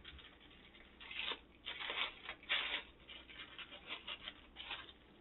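Packaging being handled and unwrapped by hand, a run of short, irregular rustles and crinkles.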